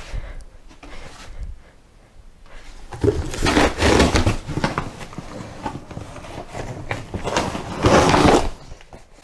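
A small cardboard box crunching and rustling as a person squats down into it and crushes it flat under her weight, loudest about four seconds in and again near the end. A few light knocks and shuffles come first.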